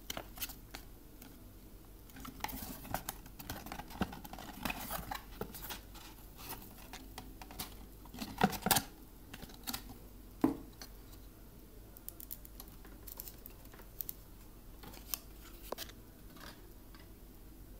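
Hands handling cardboard and plastic packaging: scattered light clicks and rustles, with a few louder knocks about halfway through.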